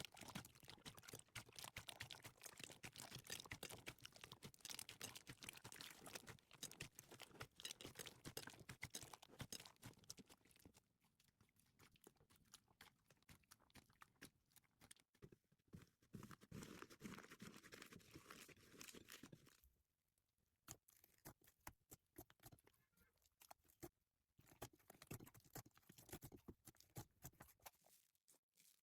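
Slime being squished and pressed by hand: faint, dense crackling and sticky clicking. It comes in two busy stretches, with thinner, quieter handling about a third of the way in and again from about two-thirds of the way through.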